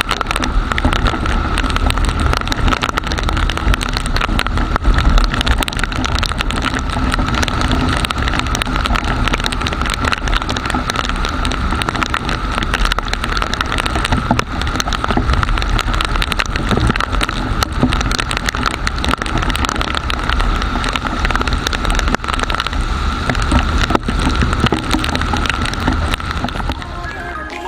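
TVS Star City motorcycle riding in heavy rain, heard through an action camera's waterproof case: steady engine, road and rain noise with a dense patter of raindrops hitting the case and a thin steady whine underneath.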